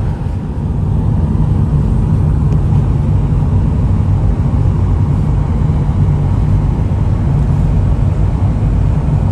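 Steady low rumble of a vehicle driving along the road, heard from inside the cabin: engine and tyre noise.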